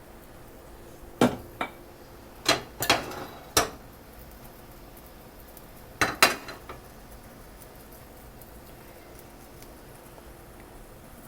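Kitchen utensils and dishes clinking: about eight sharp knocks with a short ring, in two clusters a couple of seconds apart, over a faint steady background.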